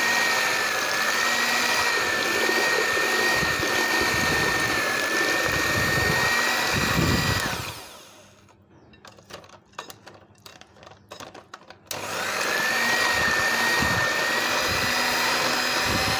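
Electric hand mixer running with a steady high whine as its beaters whip eggs, sugar and oil. About halfway through it winds down to a quiet stretch with a few faint clicks, then starts again suddenly.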